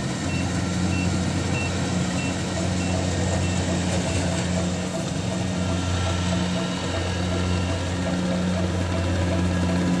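Kubota DC70 Plus combine harvester's diesel engine running steadily. A warning beeper on the machine sounds short high beeps, about one every half second, stopping about four seconds in.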